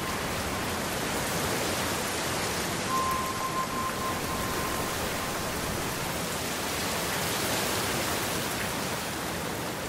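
Steady hiss of heavy rain, even throughout, with a thin steady high tone for a second or two about three seconds in.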